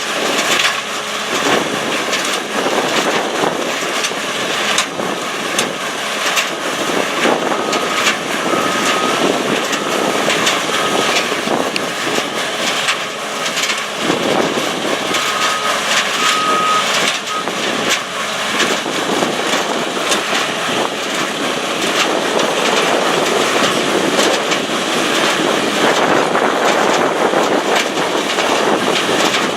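Screening plant and heavy equipment running with a steady, loud, noisy din. A faint high beeping comes in two short runs, about a quarter and about halfway through.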